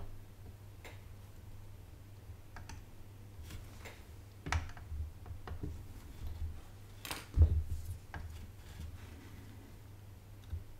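Scattered small clicks and knocks from hands, solder wire and a soldering iron working on the underside of a motherboard, with the loudest knock about seven seconds in, over a steady low hum.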